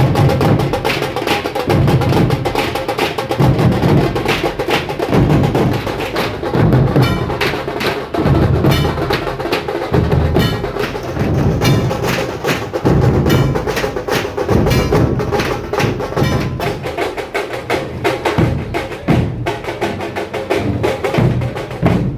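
A dhol-tasha group drumming loudly: big barrel dhol drums beat heavy low strokes about once a second under a dense, rapid rattle of sharp tasha strokes.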